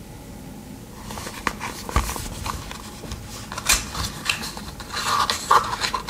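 A Swiss Army knife being handled: from about a second in, an irregular run of scrapes and sharp metal clicks as its tools are worked, with a knock at about two seconds.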